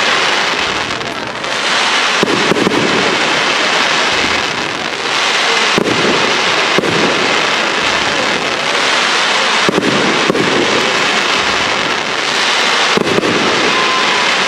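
Professional display fireworks going off continuously: many sharp bangs and crackles over a steady hiss, with a heavier burst about every three to four seconds.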